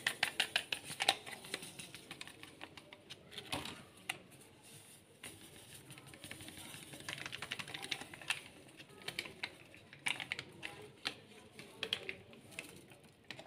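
Dry yeast being shaken and tapped out of a small sachet onto flour, heard as quiet bursts of fast, light ticking that come and go.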